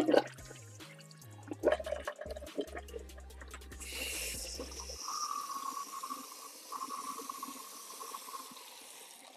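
Water splashing in a stainless steel sink as handfuls of wet synthetic braids are squeezed and rinsed. From about four seconds in, a kitchen tap runs into the sink with a steady hiss.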